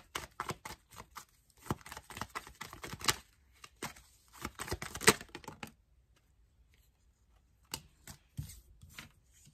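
A deck of tarot cards shuffled by hand: a rapid run of flicks and snaps for about six seconds. A few soft taps follow near the end as cards are laid down on a wooden table.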